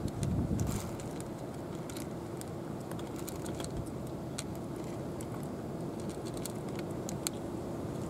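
Two cats eating dry kibble from plastic bowls, with irregular sharp crunches as they chew over a steady low background hum.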